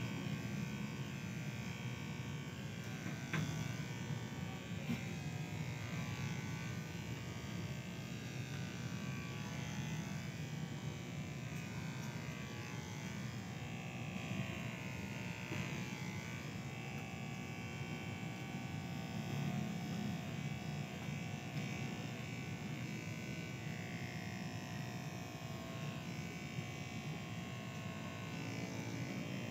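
Electric hair clippers running steadily with a humming tone.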